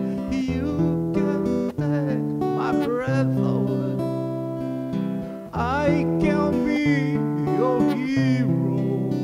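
Acoustic guitar playing sustained strummed chords, with a man singing over it in phrases, his voice wavering in pitch on the held notes.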